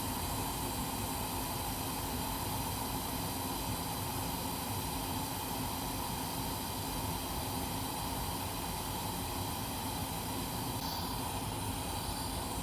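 Hot air rework station blowing steadily, a constant hiss with a faint steady hum under it, set to 500 °C on a laptop motherboard chip.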